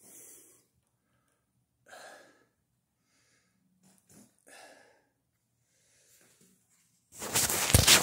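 A few faint, short breaths or sighs, then a loud rustling burst of phone handling noise about seven seconds in, lasting about a second.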